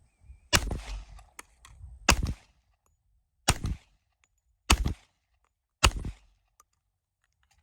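FNX-45 Tactical pistol in .45 ACP firing five single shots in slow, steady succession, about a second and a half apart, each with a short echo.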